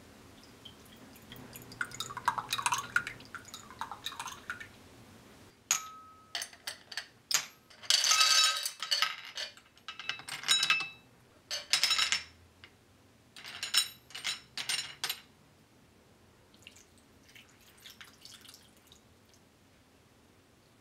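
Matcha syrup pouring from a shot glass into a glass margarita glass, the pour's pitch sweeping as it lands. Then ice cubes clink sharply against the glass and each other, one after another, as they are dropped in with tongs.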